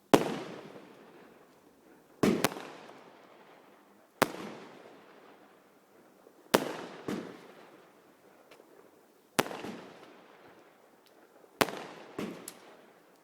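Fireworks bursting: a series of loud bangs about every two seconds, some in quick pairs, each trailing off in a fading echo.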